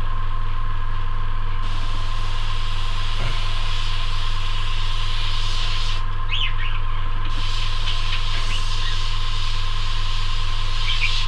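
Airbrush hissing as it sprays paint, over the steady hum of a running airbrush compressor. The spray comes on about a second and a half in, stops for about a second around six seconds in, then resumes.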